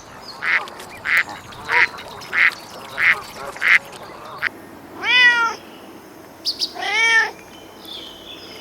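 A duck quacking six times in a steady run, about one and a half quacks a second, then a cat meowing twice, two drawn-out meows that rise and fall in pitch, about two seconds apart.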